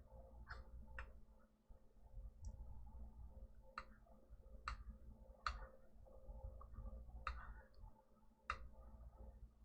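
Faint, irregular small clicks and taps, about seven or eight in all, as a thin magnetic 3D-printer bed sheet is pressed and worked by hand to push out trapped bubbles, over a faint steady low hum.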